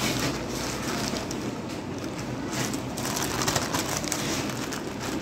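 Plastic courier mailer crinkling and rustling as it is handled and slit open with a knife, a dense run of small crackles.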